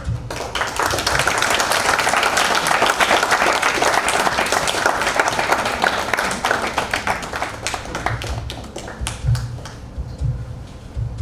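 Theatre audience applauding: a dense burst of clapping that starts suddenly, holds strong for several seconds, then thins out to scattered claps near the end.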